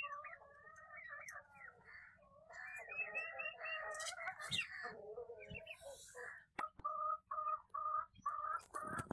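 Chickens clucking and calling. In the last few seconds the calls settle into a regular run of short clucks, about two or three a second, with a few sharp knocks near the end.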